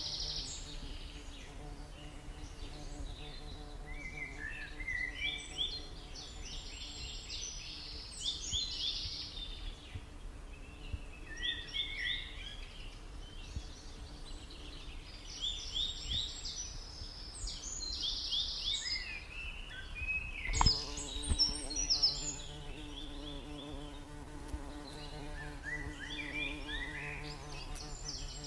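Repeated bursts of high chirping over a steady low hum, with a single sharp knock about twenty seconds in.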